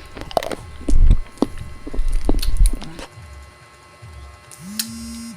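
Close-up eating sounds from someone eating ice cream with sticky toppings: wet mouth clicks and smacks, with a few low thumps against the microphone. Near the end comes a short hummed tone that slides up and holds.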